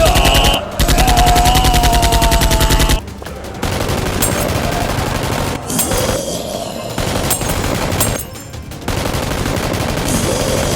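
Rapid automatic gunfire, machine-gun style: two long bursts of fast, evenly spaced shots in the first three seconds, with more scattered firing after that.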